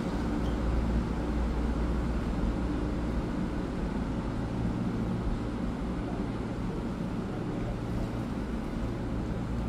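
EMU3000 electric multiple unit pulling out of the platform: a steady low rumble of traction motors and wheels on rail, easing slightly as the train moves away.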